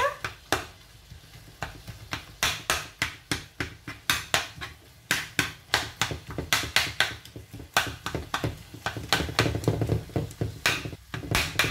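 Metal spoon knocking and scraping against a non-stick frying pan while breaking up cooked hake fillets among sautéed onions: irregular clicks and taps, a few a second.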